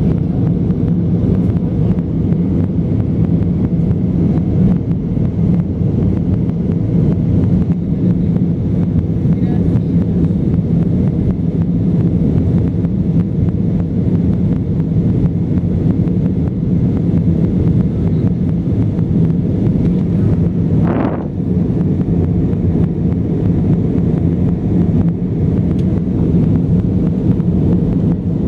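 Steady roar of an Airbus A320 in flight, engine and airflow noise heard inside the cabin, low-pitched and unbroken. There is one brief higher sound about three-quarters of the way through.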